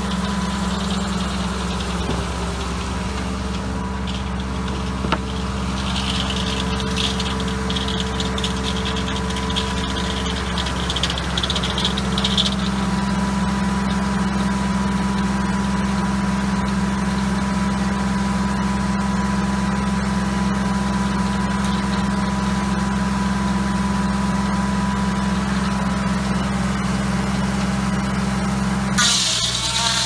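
Antique tractor engine running steadily, belt-driving a Foley Belsaw M14 circular sawmill blade that is ripping red oak into boards. A higher hiss from the blade in the wood comes in a few seconds in and lasts about six seconds, and rises again near the end as the hum changes.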